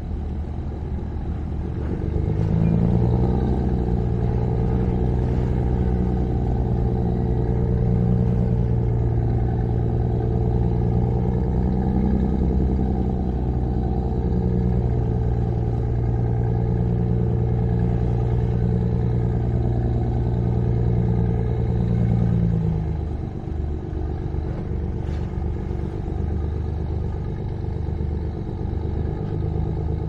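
A motor engine's steady low hum rises in about two seconds, holds, and fades back to a lower rumble a little after twenty seconds.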